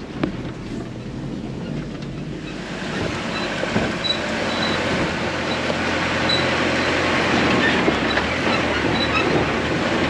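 Iveco Daily 4x4 truck's diesel engine running low as it crawls along a rough dirt track, then from about two and a half seconds a louder, rough rolling noise of the tyres on dirt and stones, heard from beside the front wheel.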